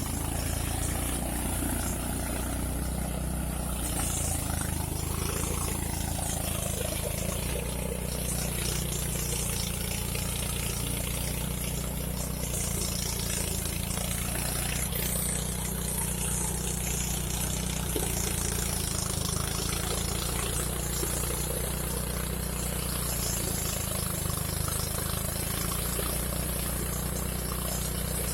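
Engine of a rice harvesting and threshing machine running steadily, a constant low drone that holds at an even level throughout.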